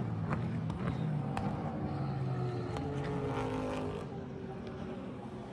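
Race car engine running past on the circuit, its note shifting in pitch, with a few sharp clicks; the sound eases a little about four seconds in.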